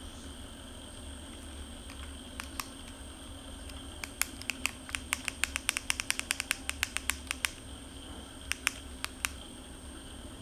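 PAM8610 amplifier board idling with no signal: a steady low hum and a steady high whine through its speaker. Sharp clicks come now and then, with a quick run of them from about four seconds in to past seven seconds.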